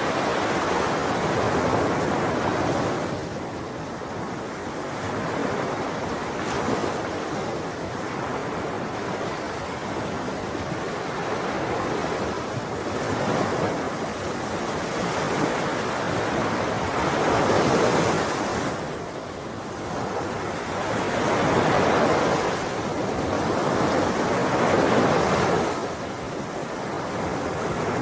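Ocean waves breaking on a shore and washing back, the surf rising and falling in swells every few seconds.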